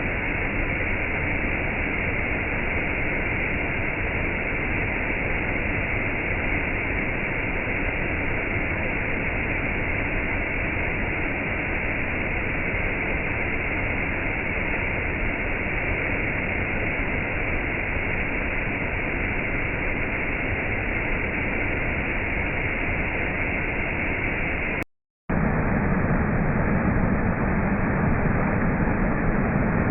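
Steady rushing roar of falling water from a waterfall. About 25 seconds in it cuts out for a split second, then continues with a deeper rumble.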